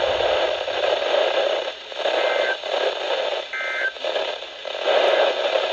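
Radio static: a loud, steady hiss that swells and fades, with two faint short two-note data bursts about a second apart, typical of the EAS end-of-message code sent after an alert.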